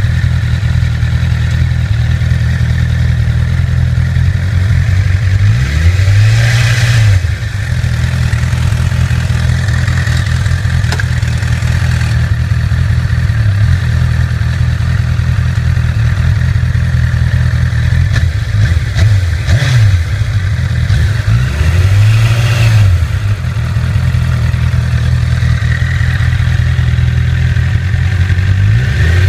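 2008 Honda CBR1000RR's inline-four engine idling with a rattle, with the throttle blipped briefly a few times. The rattle comes from a faulty cam chain tensioner, and replacing the tensioner cured it.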